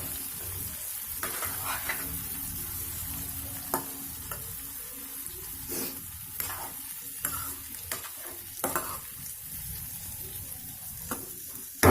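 Stuffed brinjals sizzling in oil in a kadhai while a spoon turns them over. A steady sizzle runs under a scattering of short scrapes and clicks of the spoon against the pan.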